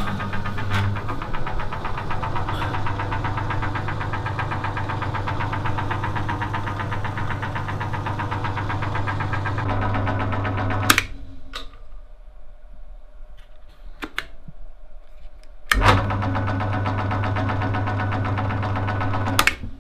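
Astra pillar drill press's electric motor and belt drive running with a steady hum and a fast fine ticking. It is switched off with a click about 11 seconds in, switched on again with a click about five seconds later, and switched off once more near the end.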